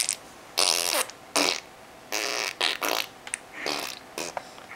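A baby blowing raspberries: a run of short, wet, fluttering lip buzzes, several in a row with brief pauses between them.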